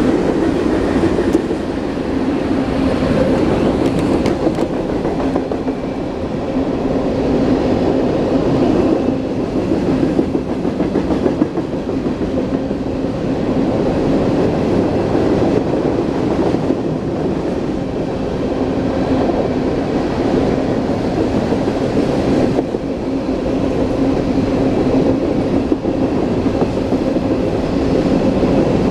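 A long freight train rolling steadily past on the tracks, its wheels and cars making a continuous rumble with a steady hum.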